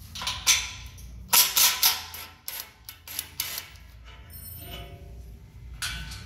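Corded electric impact wrench rattling in several short bursts as it runs a nut onto a suspension mount on a steel truck chassis.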